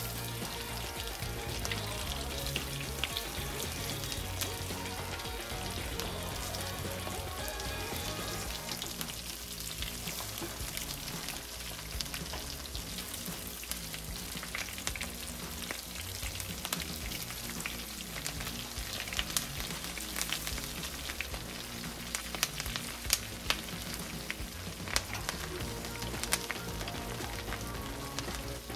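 Breaded green tomato slices shallow-frying in coconut oil in a skillet: a steady sizzle dotted with sharp crackles and pops, which come more often in the second half.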